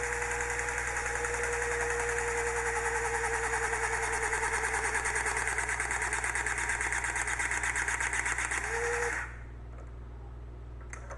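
Battery-powered hydraulic crimping tool running through a full crimp cycle on a copper ground rod compression connector: a steady motor drone with a rapid even pulse, its pitch sinking slowly as the jaws compress the connector, with a brief jump in pitch just before the motor stops about nine seconds in. A few faint clicks follow.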